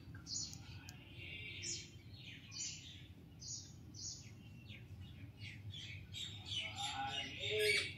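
Small pet parakeets in another room calling: a string of short, high chirps, faint and a little distant, coming faster and more crowded in the last couple of seconds.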